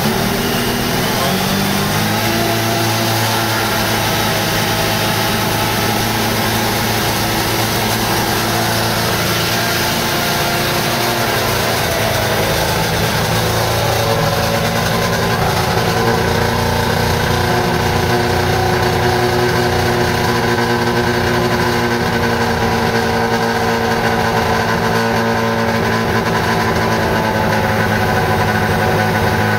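Mazda RX-7 FD3S's newly installed 13B twin-turbo rotary engine running at a steady idle on its first run, its speed falling back in the first couple of seconds and wavering slightly partway through.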